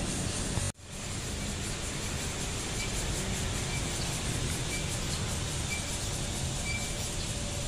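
Steady rushing outdoor background noise, broken by a brief drop-out under a second in. Faint short high squeaks come about once a second after that.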